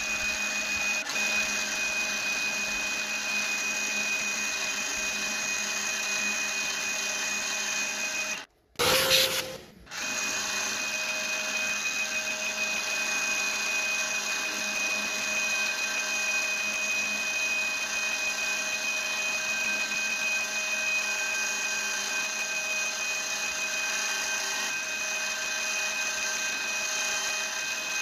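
Proxxon MF 70 micro mill running at high speed, its end mill cutting a small metal part, giving a steady whine with fixed high tones. About eight and a half seconds in, the sound drops out briefly and a short louder burst follows before the steady cutting sound returns.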